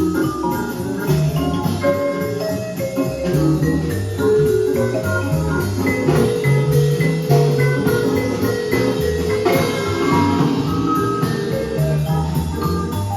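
Music playing back from a vinyl record on a turntable: a piece with mallet percussion such as marimba over drums and a steady low rhythm.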